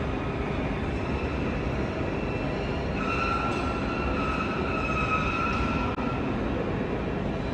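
Jet airliner engines running at taxi power: a steady rumble, with a whine that comes in about three seconds in and fades out about three seconds later.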